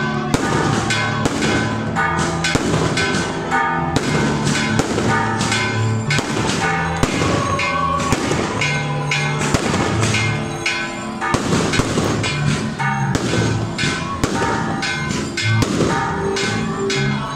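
Aerial fireworks going off in a rapid run of sharp bangs and crackles, over steady music.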